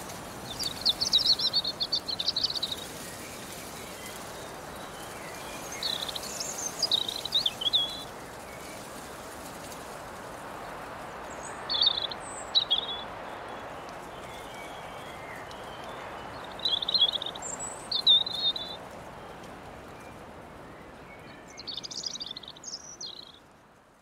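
A songbird singing short warbling phrases five times, several seconds apart, over a steady rustling breeze through grass and leaves; the sound fades out at the end.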